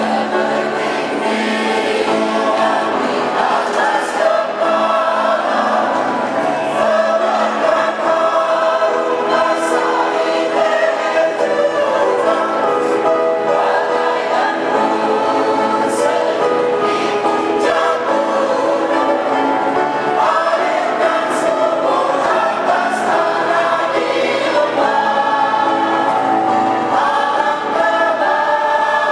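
Mixed choir of women's and men's voices singing, steadily and without a break, in held chords.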